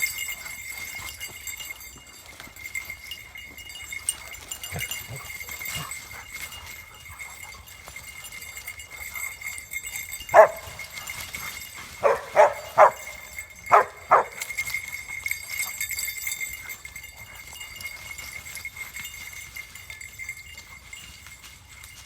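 A dog barking: one loud bark about ten seconds in, then five more in quick succession over the next two seconds. A faint steady high whine runs underneath throughout.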